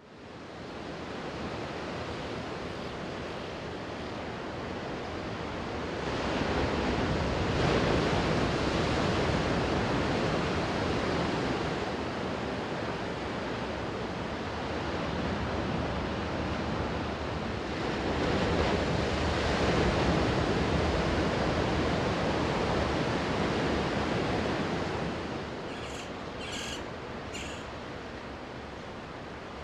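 Ocean surf: waves breaking and washing ashore in a continuous rush, swelling louder twice and easing off near the end. Three short high chirps sound near the end.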